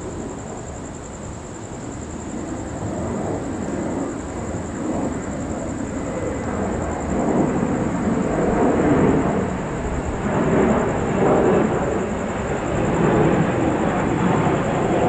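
Thunder rumbling: a long, low roll that builds louder over several seconds and swells and fades in waves.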